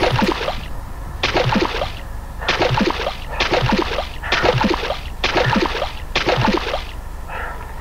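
Kayak paddle strokes splashing in water, seven in a steady rhythm a little under one a second.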